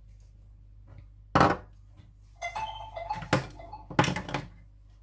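Kitchenware being handled: several sharp knocks and clinks of dishes, the loudest about a second and a half in, with a brief ringing tone from one of them in the middle.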